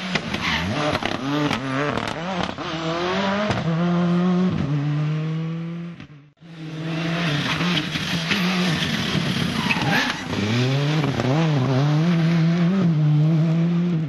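Turbocharged four-cylinder World Rally Car engines driven hard one after the other through a tyre chicane, first a Ford Escort WRC and then a Toyota Corolla WRC. The engine note climbs and falls again and again through gear changes and lifts, with sharp pops in the first few seconds. The sound breaks off suddenly about six seconds in and the second car's engine takes over.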